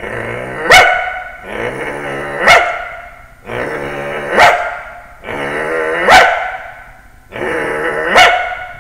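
A man's voice imitating a scrappy little dog: five rounds of growling, each ending in a sharp yap, about two seconds apart.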